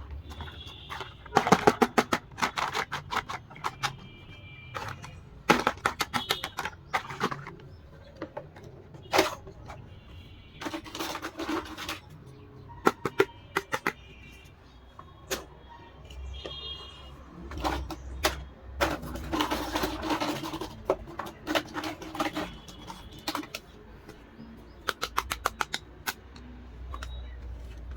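Plastic doll house pieces and accessories being handled: clusters of sharp clicks, taps and rattles, with short stretches of rustling.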